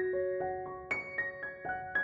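Background music: a gentle piano melody of single notes, struck one after another at several notes a second, each ringing and fading.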